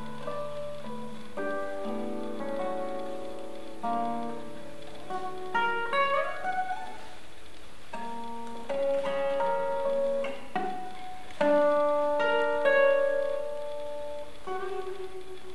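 Classical guitar played in concert: plucked melody notes and chords, each struck and fading, with a note sliding up in pitch about six seconds in.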